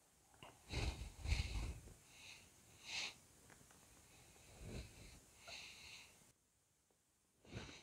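A man breathing in and out through his nose close to a clip-on microphone: a few faint, short breaths, then a quiet stretch near the end.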